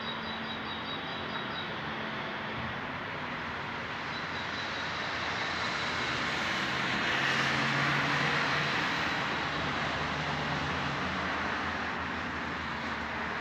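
A motor vehicle driving past, its engine and road noise swelling to loudest a little past halfway and then fading away.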